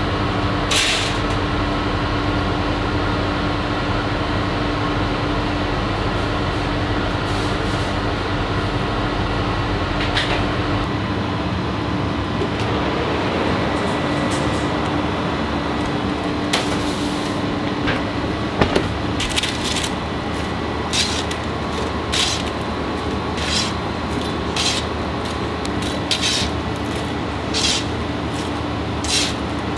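Steady whir and hum of a commercial convection oven's fans and kitchen ventilation. In the second half short, sharp crackles or ticks come about once a second.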